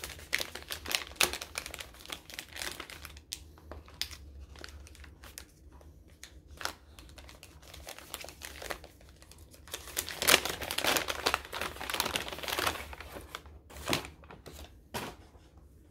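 Crinkly wrapping rustling and crackling in quick irregular strokes as a small gift-wrapped package is unwrapped by hand. It is busiest and loudest about ten seconds in.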